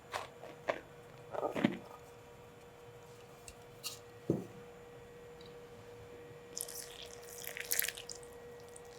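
Kitchen food-preparation handling sounds: a few light taps and knocks in the first half, then a brief crisp rustle near the end, over a faint steady hum.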